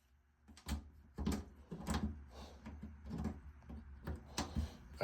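Irregular clicks and knocks of hand-tool work as screws are backed out of a front-loading washer's door lock switch. They start about half a second in and come every half second or so.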